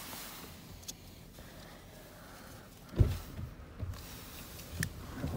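Quiet inside a parked car, broken by a light click about a second in and a single dull thump about three seconds in.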